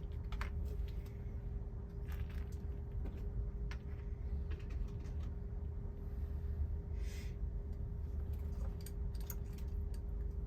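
Small metal tools clicking and tapping against a circuit board at a repair bench, over a steady low hum of bench equipment. A brief hiss about seven seconds in.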